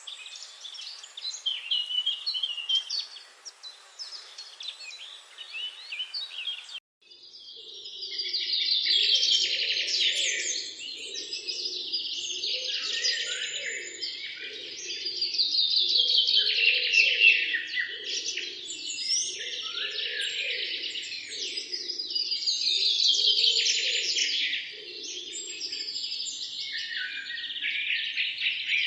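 Forest birds singing and chirping. About seven seconds in the recording changes abruptly to a denser chorus of many birds, with a lower sound repeating about once a second beneath it.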